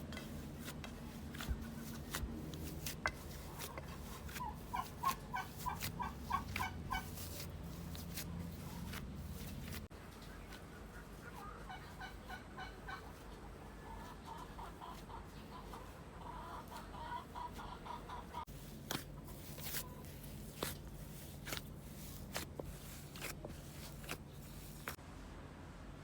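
Domestic fowl calling in several runs of quick short notes, about eight a second, with scattered sharp clicks and knocks between them.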